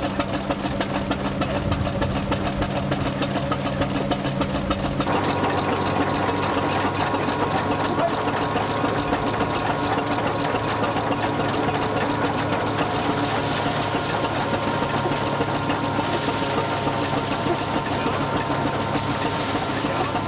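Vintage tractor engine running steadily with a rapid, even clatter. About five seconds in the engine note changes abruptly to a different steady pitch.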